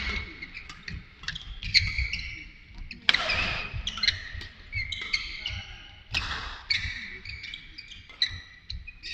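Badminton rally on an indoor court: shoes squeaking on the court mat and rapid footsteps, with a sharp racket hit on the shuttlecock about every three seconds.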